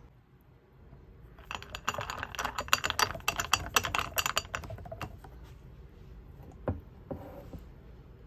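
Ice cubes clinking against a glass mug as a milky drink is stirred with a plastic straw: a quick run of clicks for about three seconds, then a single click and a short rattle near the end.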